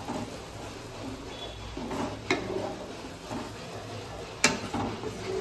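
A cooking spoon stirring and scraping in a pan of mustard-paste curry base, with two sharp clinks against the pan, one about two seconds in and one near the end.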